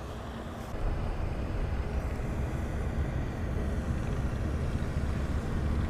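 Steady low rumble of wind buffeting the microphone, stepping up a little less than a second in.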